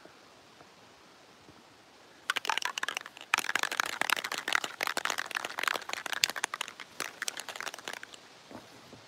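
Cardboard sheets being handled, crumpled and pushed into place by hand: a dense crinkling and crackling that starts about two seconds in and stops about a second before the end.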